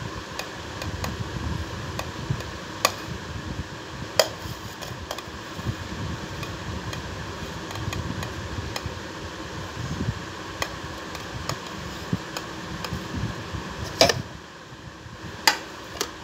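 Soft taps and clinks as fruit pieces and a steel plate knock against a stainless steel mixer-grinder jar, over a steady background whir. The loudest knocks come near the end, and the whir drops lower after the first of them.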